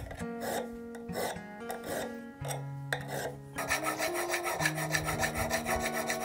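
Small steel file rasping on the cutting edge of an auger bit as it is sharpened by hand. The strokes start out short and spaced, about two or three a second, then turn into a fast, even rasp a little past halfway.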